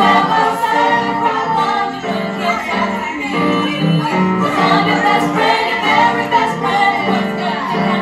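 Music: a pop song with a group of young girls' voices singing together over a backing track.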